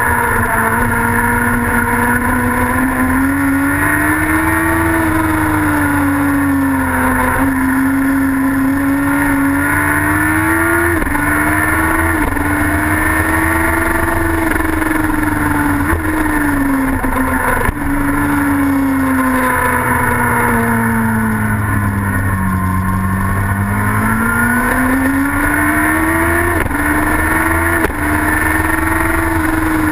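Racing sidecar outfit's engine under race load, heard from onboard. Its pitch swells up and down over several seconds at a time as it accelerates and backs off, with a few sudden jumps in pitch.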